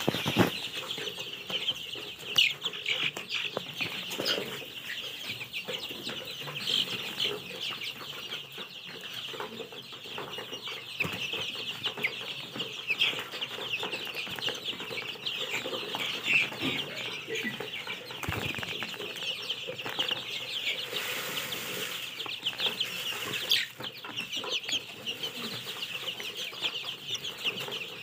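A flock of young chickens calling continuously, many short high cheeps overlapping, with a sharp knock right at the start.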